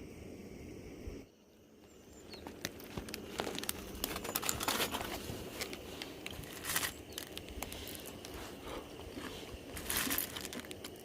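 Packaging crinkling and rustling as it is handled, with irregular crackles starting about two seconds in.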